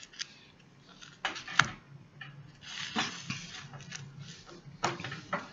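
Hands handling hair wefts and sewing them onto a mesh wig cap: light rustling and scattered clicks, with one sharp click about one and a half seconds in.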